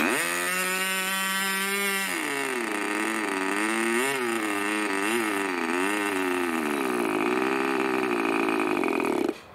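Irvine 25 Mk II two-stroke model glow engine being started on its first run from stone cold. For about two seconds it spins at a steady pitch under the electric starter, then it runs on its own with its speed wavering up and down, and it cuts out suddenly near the end.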